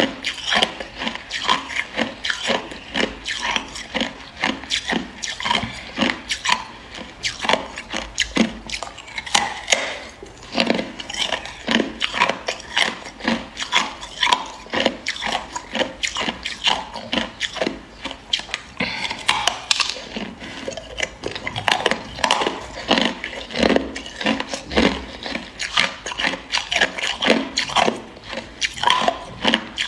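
Clear hard ice being bitten and chewed close to the microphone: dense, irregular crunching and crackling, several sharp cracks a second.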